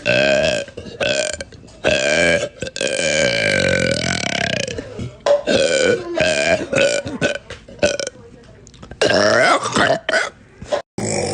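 Women burping loudly, a run of separate burps one after another, the longest drawn out for about two seconds starting about three seconds in.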